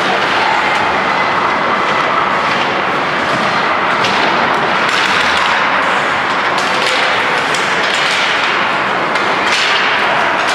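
Ice hockey play: skates scraping on the ice and sticks and puck knocking, over a steady arena din. The sharp knocks and scrapes come thicker in the second half.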